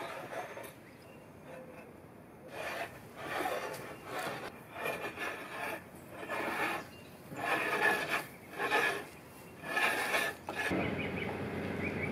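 A hand tool being worked back and forth along a bent wooden strip, about nine separate scraping strokes, roughly one a second. A different steady sound takes over suddenly near the end.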